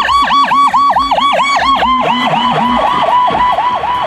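Ambulance siren in a fast yelp: the pitch sweeps down and back up about five times a second, loud and steady.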